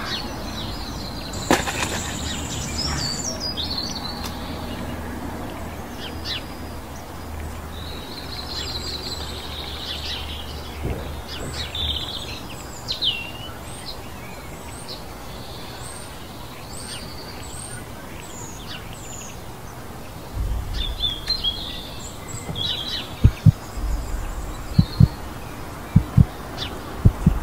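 Woodland birds chirping and calling, many short whistled notes, over a low rumble. Near the end comes a run of short, deep thumps, some in pairs.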